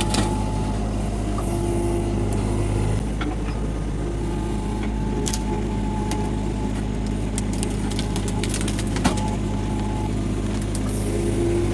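Mini excavator engine running steadily under hydraulic work, its note dropping about three seconds in and picking back up near the end, with a few sharp snaps of bush stems being cut between the bucket and thumb, the loudest about nine seconds in.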